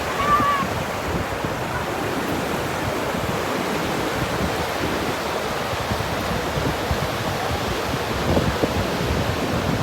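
Ocean surf: a steady wash of waves breaking on a beach.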